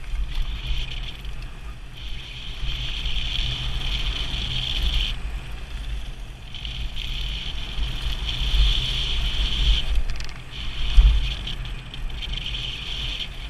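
Mountain bike descending a gravel trail at speed, heard from a helmet-mounted camera: wind buffeting the microphone over tyres rattling on gravel. A steady high buzz drops out twice, and there is one hard thump about eleven seconds in.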